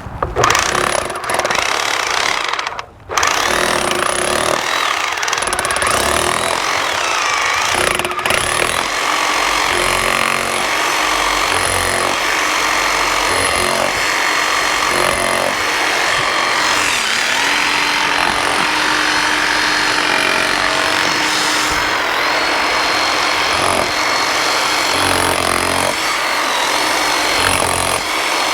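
Electric chipping hammer chiselling along a crack in a concrete foundation, widening it for patching. It runs steadily, with a brief stop about three seconds in.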